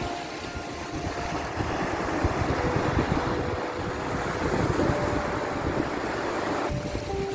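Sea waves, a steady wash of surf with a low rumble, with soft long-held music notes over it that change pitch every couple of seconds.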